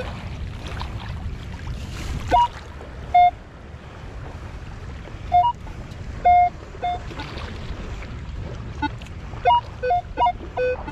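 Metal detector sounding short beeps at two or three different pitches over a buried target still in the sand, the beeps coming more often near the end. Steady surf and wind hiss underneath.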